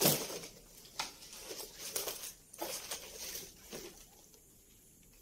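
A few irregular footsteps scuffing and clicking on a hard floor, dying away after about four seconds.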